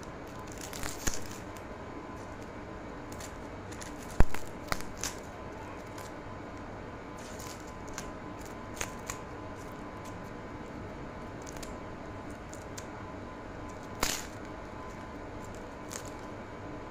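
Scattered clicks and knocks of a kitchen knife and hands on a cutting board during vegetable prep, with a sharp knock about four seconds in the loudest, and short bits of rustling in between. A faint steady hum runs underneath.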